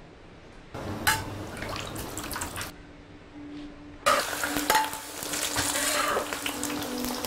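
Garlic cloves and dried red chillies dropped into hot oil in a large wok, sizzling loudly from about four seconds in. Before that, softer sizzling of heating oil and a metal clink about a second in.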